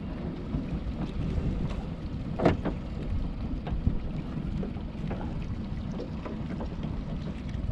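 Wind buffeting the microphone over a low rumble, with scattered small drips, splashes and knocks as a wet crab-pot rope is hauled in hand over hand over the side of an aluminium boat. One louder knock comes about two and a half seconds in.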